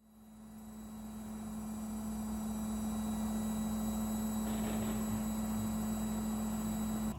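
Midea front-loading washing machine running with a steady hum that builds up over the first couple of seconds, then holds level.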